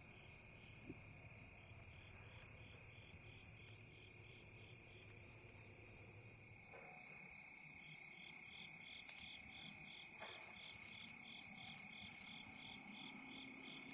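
Steady chorus of insects in the field, one voice pulsing evenly at about four times a second, with a faint tick about a second in.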